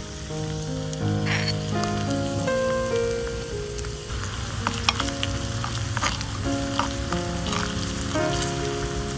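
Chopped aromatics sizzling and crackling in hot oil in a miniature clay pot, with scattered sharp pops. A tiny spatula stirs them near the end. A background music melody plays throughout.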